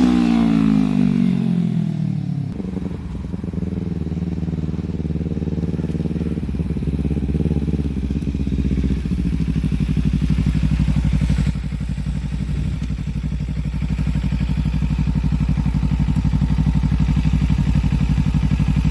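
Audi S5's engine running: its pitch falls over the first couple of seconds as the revs drop, then it settles into a steady, evenly pulsing idle.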